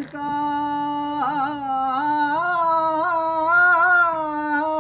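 A single voice singing a naat, holding one long wordless note. Small ornaments wind through it, and the pitch lifts slightly about a second in and again about two seconds in.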